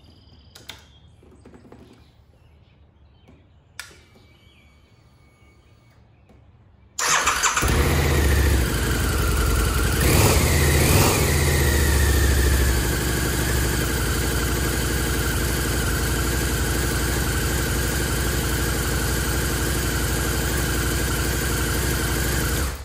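Harley-Davidson V-Rod Muscle's liquid-cooled V-twin starting on a newly fitted AGM battery. It fires up suddenly about a third of the way in, is blipped twice, then settles to a steady idle before being switched off at the very end.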